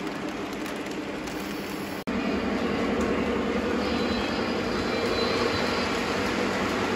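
Lionel O gauge three-rail model train running on its track: wheels rolling with a steady hum. The sound breaks off for an instant about two seconds in and comes back louder.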